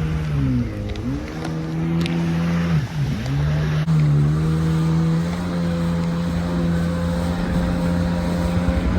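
Jet ski engine running; its pitch dips briefly twice in the first few seconds, then holds steady.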